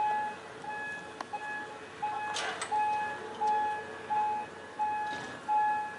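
Turntable warning signal sounding repeated electronic beeps at one pitch, a little under two a second, as the turntable rotates the steam locomotive. A short hiss comes about two and a half seconds in.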